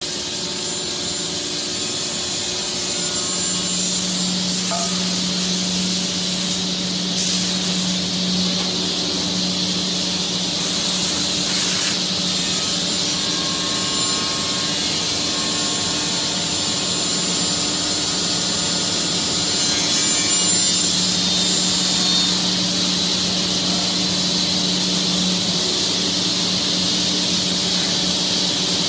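Four-spindle 3D CNC wood router cutting a wooden workpiece: the spindle's steady high whine and the rush of the cutter in the wood. A low hum strengthens twice, for several seconds each time.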